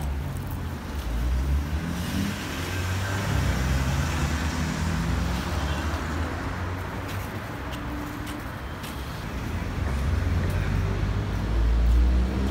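City street traffic: cars driving past at an intersection, a steady rumble of engines and tyres.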